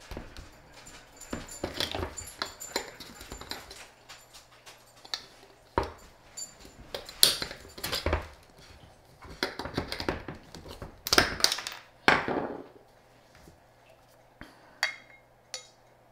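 Irregular clicks, scrapes and metallic clinks of a spout cap being pried and twisted open on a metal can with a small tool, with the loudest clatter about halfway through and again around three-quarters of the way in.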